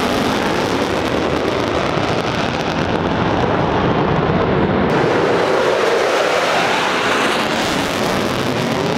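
Jet noise from U.S. Air Force Thunderbirds F-16 fighter jets flying overhead: a loud, steady rushing sound whose tone slowly shifts as the jets move.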